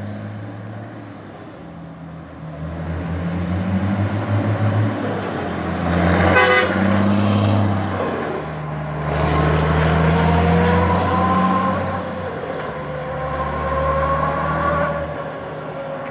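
MAN TGA truck with a straight-piped diesel exhaust running loud as it drives up, passes close and pulls away, with a sharp rapid blat from the exhaust as it goes by about six seconds in. A whistling tone rides over the engine as it drives off.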